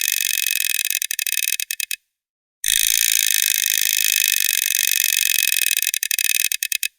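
Plastic teeth chattering in a rapid, high clatter that breaks up and stops about two seconds in. After a short gap the chattering starts again, runs for several seconds, then breaks up and stops just before the end.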